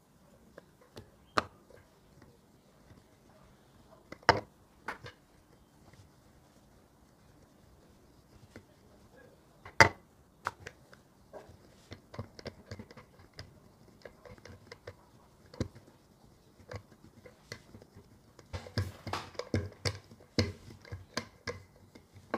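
Wooden rolling pin rolling out dough on a granite countertop: scattered knocks and taps as the pin meets the stone, a few louder ones, growing busier near the end.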